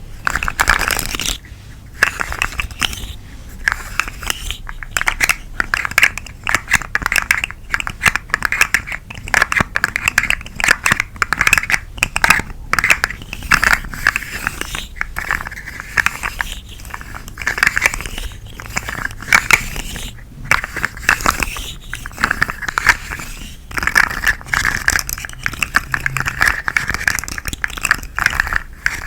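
Twisting macaron worm toy handled close to the microphone: a dense, continuous crackling and crinkling with quick clicks and scrapes, coming in short waves with brief pauses.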